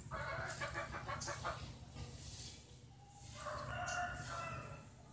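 Faint rooster crowing: one long, held call about three seconds in.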